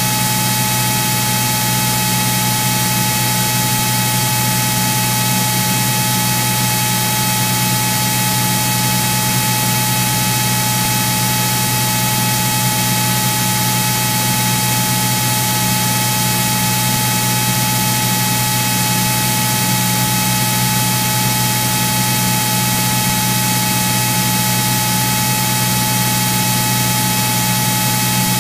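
Steady cockpit drone of a Cirrus SR22's six-cylinder piston engine and propeller in flight, heard as an even hiss with a low hum and a steady high whine, unchanging throughout.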